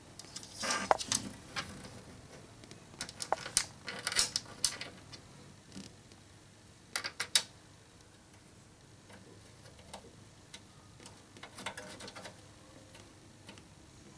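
Glass side panel of a PC case being handled and fitted: scattered clicks and taps in a few short clusters, with the crinkle of its plastic protective film.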